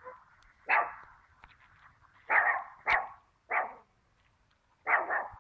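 A dog barking repeatedly, about six short sharp barks at irregular spacing, some coming in quick pairs.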